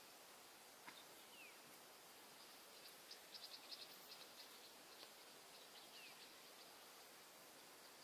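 Near silence: faint outdoor background hiss, with scattered faint high ticks around the middle and two brief, faint falling chirps.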